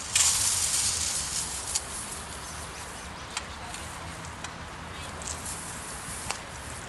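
Steel chain mail shirt jingling and rustling as it is pulled on, loudest at first and settling after about a second and a half. A few single metal clinks follow.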